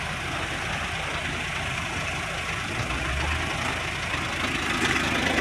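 Heavy vehicle's diesel engine idling with a steady low rumble that swells briefly about three seconds in.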